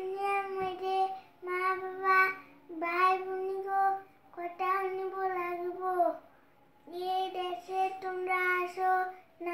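A young boy singing solo, unaccompanied, in phrases of long held notes with short breaks for breath between them.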